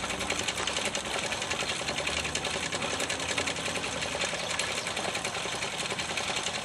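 Homemade motor-driven wood lathe running, a square wooden beam spinning on belts and bicycle-rim pulleys: a steady, fast, even clatter.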